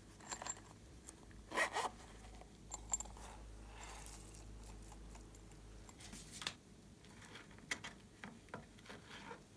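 A small plastic container being handled and sequins shaken out of it into a glass tray of slime: a scatter of light clicks, rattles and short rustles.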